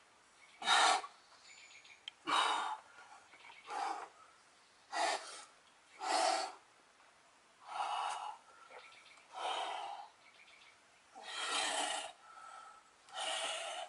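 A boulderer's hard, noisy breaths under strain while climbing a steep overhang: about nine sharp exhalations, roughly one every one and a half seconds.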